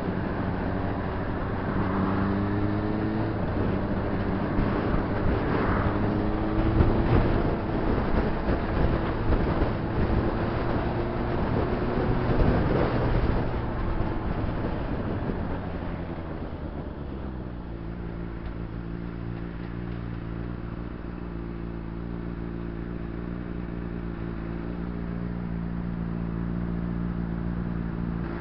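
Honda CBR600RR's inline-four engine under way with wind and road noise, its pitch rising and falling as the bike rides in traffic; about halfway through, the wind noise drops away and the engine settles to a steady idle as the bike stops.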